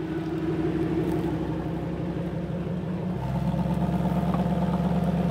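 Off-road recovery vehicle's engine running at a steady speed; about three seconds in its note changes and grows a little louder, as under more throttle or load.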